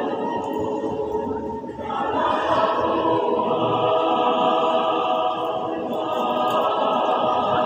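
Choir singing, holding long sustained chords. The sound thins briefly about two seconds in, then swells into a louder held passage.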